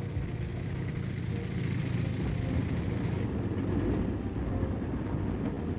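Tank engine running with a steady low rumble as the tank drives along. The higher hiss above it drops away about three seconds in.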